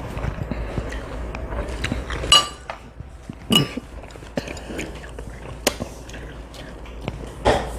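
Eating utensils clinking against a bowl during a meal of noodles, with two clearer ringing clinks a few seconds in and other light taps and clicks.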